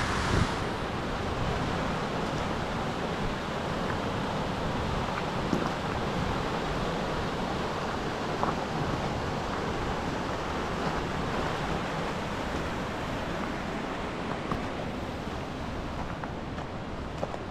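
Steady rushing noise with a few faint ticks scattered through it.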